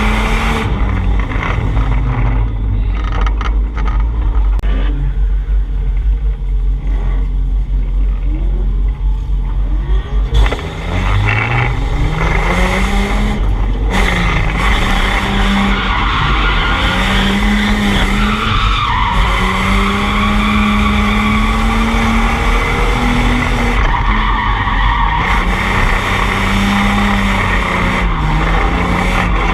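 Drift car's engine running hard, its pitch rising and falling with the throttle, over tires squealing as the car slides. About ten seconds in the revs drop, then climb again.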